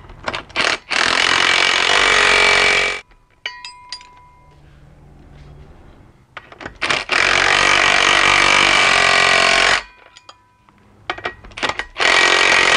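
Cordless impact wrench driving the bolts of a driveshaft center support bearing. It goes in three runs of about two to three seconds each, and each run is preceded by a few short trigger blips.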